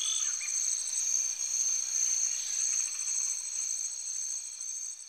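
Crickets trilling steadily in high, pulsing tones, with a couple of short bird chirps about the first half-second; the sound fades away near the end.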